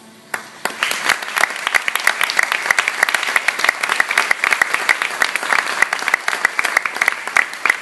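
Congregation applauding: the applause breaks out suddenly just after the start and goes on steadily and loudly.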